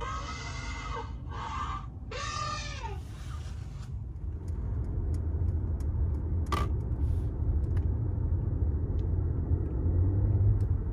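Recorded elephant trumpeting, played through the car's cabin speakers by the Mercedes voice assistant: three blaring calls over the first three seconds. Then the low rumble of road and tyre noise inside the moving car, with a single click about six and a half seconds in.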